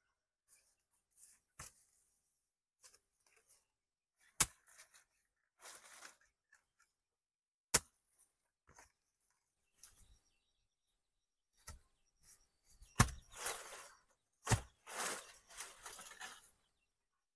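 Hand work with sharp, separate knocks, four of them loud, and scraping, rustling bursts between them that thicken near the end.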